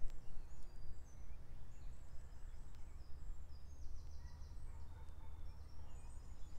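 Several woodland songbirds singing: many short, high chirps and trills overlapping, over a steady low rumble.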